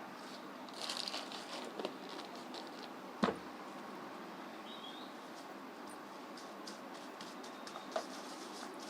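Faint handling sounds: scattered light ticks and soft rustles, with one sharp knock about a third of the way in and a smaller one near the end.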